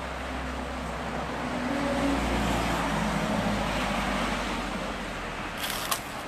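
Road traffic noise: a motor vehicle's engine rumble swells and fades as it passes, over a steady hum of wind and traffic, with a short sharp click near the end.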